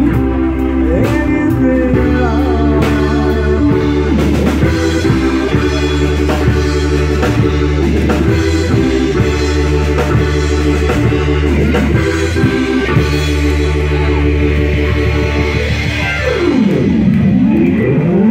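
Live rock band playing an instrumental passage: sustained keyboard chords over a steady bass line, with drum kit and electric guitar. Near the end a note sweeps steeply down and back up.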